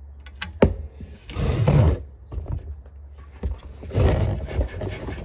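A few light clicks and a sharp knock of a small metal heater part being handled, then two spells of rough scrubbing with a Scotch-Brite pad, about one and a half and four seconds in.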